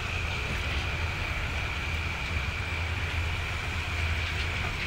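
Steady low rumble of a diesel locomotive shunting a rake of coaches, with a steady high-pitched whine that sinks slightly in pitch.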